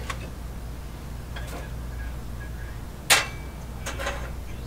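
A few sharp metallic clicks, the loudest about three seconds in, from small steel pins being handled. A steady low hum runs underneath.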